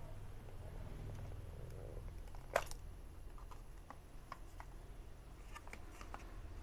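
Hands handling the plastic case of a washing-machine voltage control unit: one sharp click a little over two seconds in, then several small light clicks and taps, over a steady low hum.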